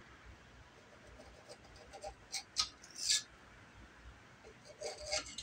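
A knife cutting a piece out of baked bread in a cast-iron skillet: a few short scrapes and clicks of the blade, most of them about two to three seconds in and a few more near the end.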